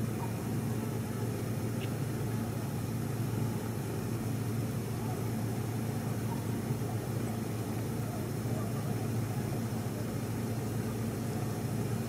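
Steady low hum of an idling vehicle engine, unchanging throughout.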